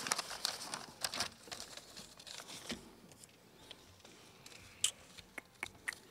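Paper or a wrapper crinkling and rustling close to a microphone as it is opened and handled. It makes a dense run of small crackles at first, then scattered sharp clicks, with one louder snap about five seconds in.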